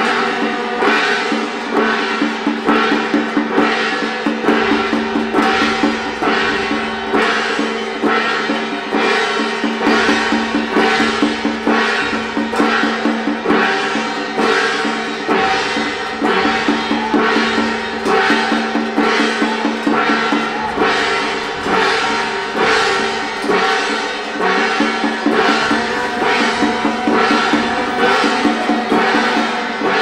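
Temple procession music: drums beating a fast, even rhythm with gong and wood-block strokes, over held pitched tones.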